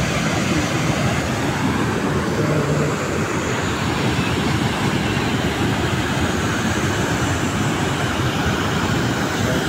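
Muddy floodwater rushing through open dam spillway gates and crashing into the river below: a loud, steady, unbroken rush with a deep rumble.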